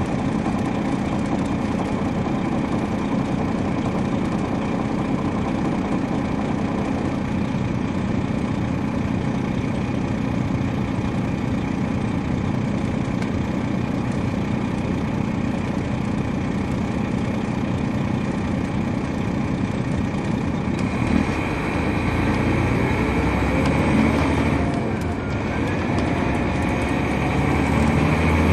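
Inside the cabin of a 2003 MCI D4500 coach bus: its Detroit Diesel Series 60 inline-six diesel runs steadily under way with road noise. In the last several seconds the sound shifts, with a rising whine, a brief dip and then a louder engine note.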